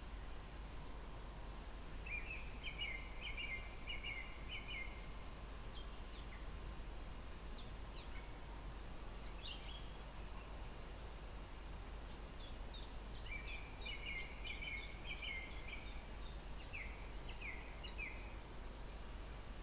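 Songbirds singing: a long run of rapid, high notes about two seconds in and another about two-thirds of the way through, with scattered short chirps between, over a steady low rumble of background noise.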